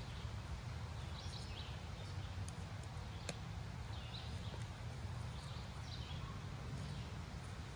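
Birds chirping in short repeated phrases over a steady low rumble, with a few faint sharp ticks from a knife blade cutting into a dry black cherry stick.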